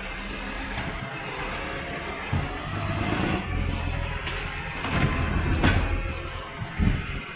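Garbage truck engine running steadily with a low rumble, on a truck with an exhaust leak, and a few short knocks or clunks over it.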